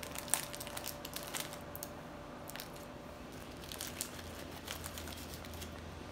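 Plastic snack bag of pizza crackers being torn open and handled: a string of sharp crinkles and crackles, the loudest a single crack about a third of a second in.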